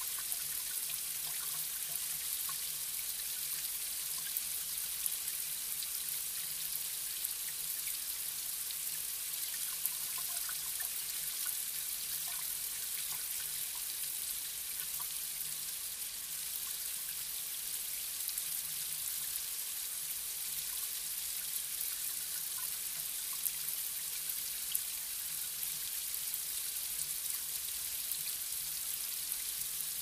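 Light rain falling on pavement: a steady high hiss with many small scattered drips and splashes.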